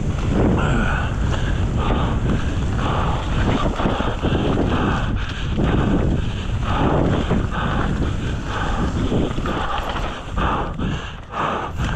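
Wind buffeting the camera microphone over the low rumble of a mountain bike rolling fast down a rough dirt trail, with surges of noise coming and going about once a second.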